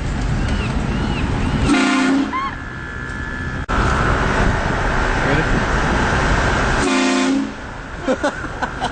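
Train horn fitted to a truck blasting: a short blast about two seconds in, then a long held blast of about three seconds that ends in another short burst.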